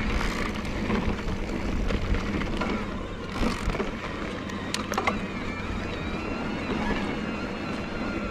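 Bosch Performance Line CX mid-drive e-bike motor whirring steadily under pedalling load on a trail climb, with sharp clicks and rattles from the bike now and then.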